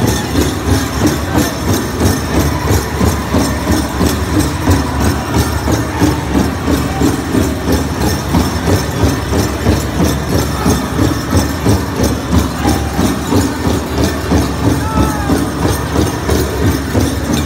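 Powwow drum group playing for the grass dance: several drummers striking a large drum together in a steady, even beat, with singers' high voices heard over it.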